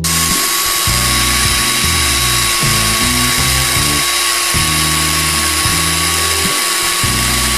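Small electric mini chopper (petit robot) running continuously with a steady high whine, its blade blending avocado flesh with a cherry tomato.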